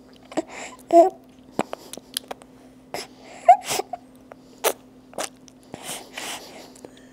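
An infant feeding close to the microphone: a string of wet smacking and sucking clicks with a few short squeaks and grunts, the loudest about a second in and again about three and a half seconds in.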